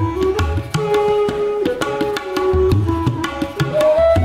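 Instrumental background music: a melody that slides between held notes over repeated low hand-drum strokes and crisp strikes.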